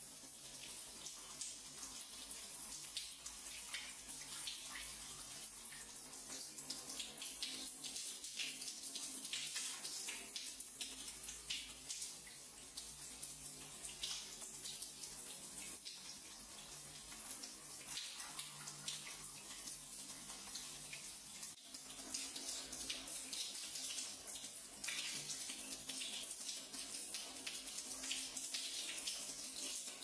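Waterfall shower spray falling on wet hands, a steady hiss with many fine irregular spatters of drops.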